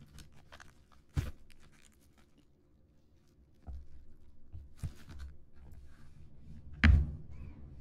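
Fingertips tapping, scratching and handling a cardboard herb planter kit box, with soft ticks and scrapes and two sharper thumps of the box, one about a second in and a louder one near the end.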